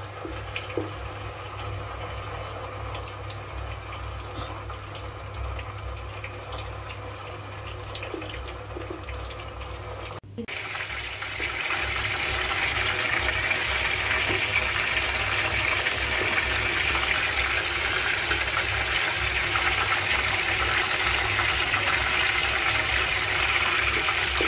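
Marinated raw pigeon frying in medium-hot oil: a soft sizzle with scattered pops at first, then, after a brief break about ten seconds in, a louder, steady crackling sizzle as the oil bubbles around the meat.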